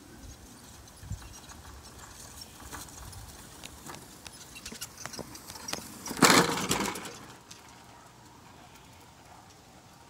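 Electric powerchair driving under remote control, its motors running as its wheels roll over dry grass and asphalt, with scattered clicks and a loud burst of noise about six seconds in.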